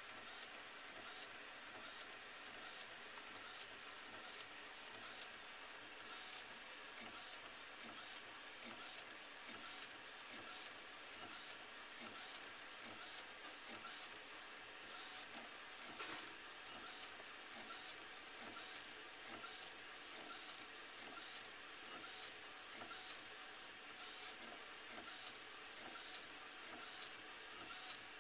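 LogoJET inkjet printer running a print job: the print-head carriage shuttles steadily back and forth, with a light click repeating about twice a second as it passes.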